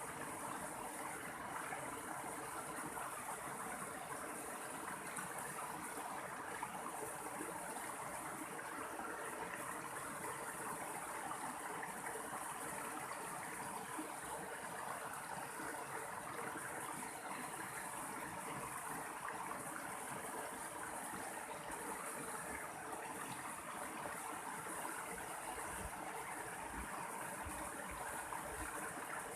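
Mountain stream water rushing and splashing in a steady, unbroken flow.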